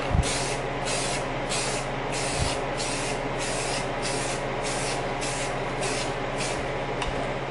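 Aerosol spray paint can hissing in short, even pulses, about two a second, as a light base coat is swept across a pistol in quick passes.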